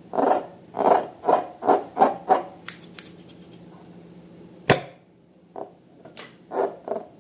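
Slime being squeezed and kneaded by hand, squelching in a quick run of about three squishes a second, then a single sharp click and a few softer squelches near the end.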